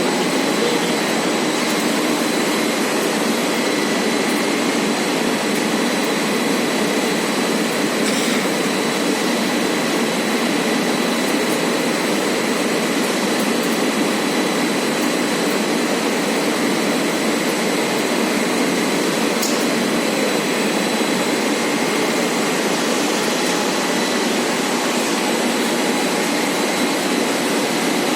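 Rubber extrusion and microwave curing production line running: a loud, steady rushing like fans or blowers, with a thin steady high whine over it.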